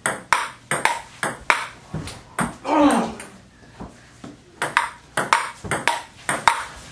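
Table tennis rally: the celluloid ball clicking off paddles and the table in quick alternating hits, two to three a second, with a short lull around the middle.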